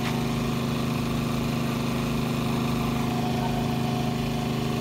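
An engine idling steadily at a food-truck van, a constant low hum that holds the same speed throughout.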